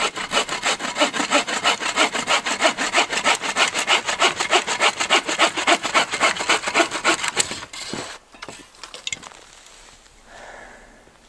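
Bow saw cutting through a dead log with fast, even push-pull strokes; the wood sounds like dry lumber. The sawing stops about seven and a half seconds in, followed by a few light knocks.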